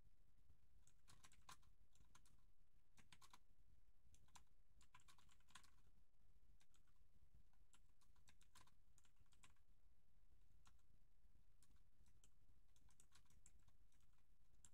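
Faint computer keyboard typing: irregular clusters of key clicks with short pauses between them, over a low steady hum.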